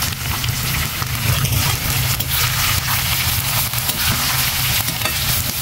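Sliced onions and green chillies sizzling in hot sesame oil in a stainless-steel kadai: a steady hiss with many small crackles. A metal spatula scrapes the pan as they are stirred.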